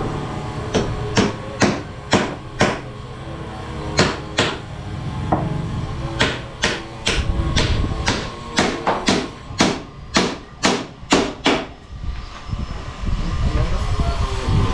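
Hammer blows, in runs of sharp strikes about two to three a second with short pauses between the runs, stopping near the end.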